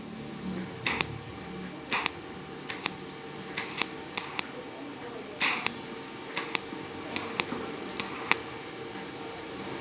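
Capacitor-discharge welder firing short sharp snaps at irregular spacing, roughly two a second, as each discharge fuses filler rod into a hole in a stainless steel tank. A steady faint hum runs underneath.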